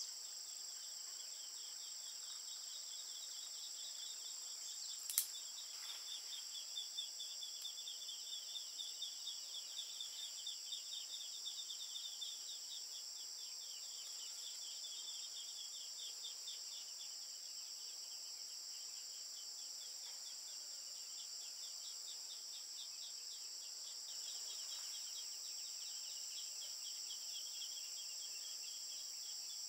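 Insects shrilling steadily in a high-pitched chorus, with a faster pulsing trill beneath it. A single sharp click sounds about five seconds in.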